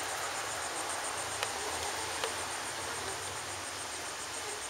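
Insects chirping steadily in a high, evenly pulsing drone, with a couple of faint clicks.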